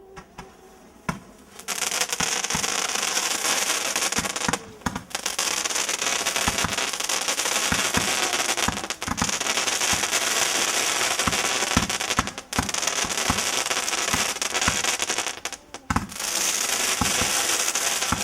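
Fireworks going off: after a quiet second and a half, a loud continuous hiss thick with rapid crackles and pops, dropping away briefly three times.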